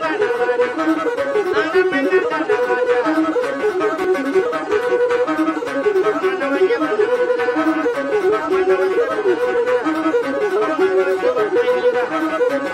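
Title theme music led by a wind-instrument melody over a quick, steady beat.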